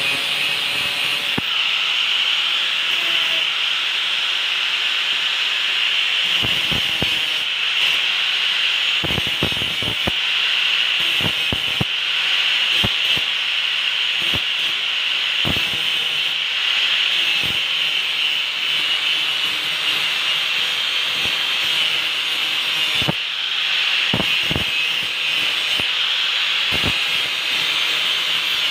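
Handheld angle grinder running steadily as its disc grinds the steel of a rusted machete blade, a continuous high-pitched grinding hiss. Short clicks and knocks come now and then as the disc shifts along the blade.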